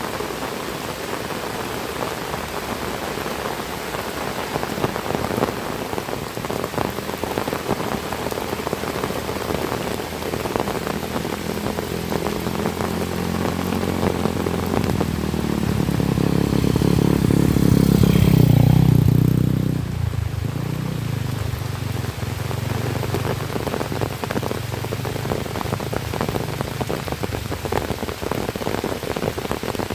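Heavy rain falling steadily on surfaces, with many close drop hits. A vehicle engine hum builds from about eleven seconds in, is loudest just before twenty seconds, then falls away quickly as it passes.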